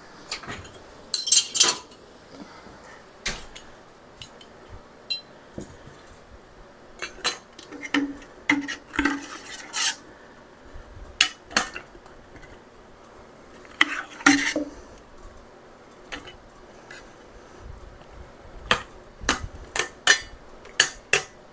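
Metal spoon and ladle clinking, knocking and scraping against a stainless steel stockpot and a glass canning jar with its funnel as apple pie filling is scooped from the pot into the jar. Scattered clinks throughout, with a louder clatter about a second in and a few short runs of quick taps later on.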